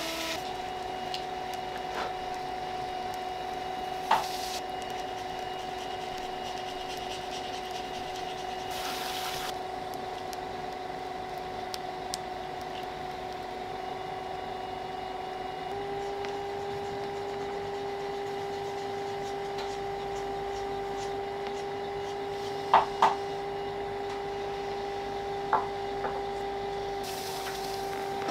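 Electric potter's wheel motor running with a steady whine that steps up slightly in pitch about halfway through as the wheel speed changes. A sponge works the wet clay of a spinning bowl, with a few short swishes and several sharp clicks, the loudest a close pair about three quarters of the way through.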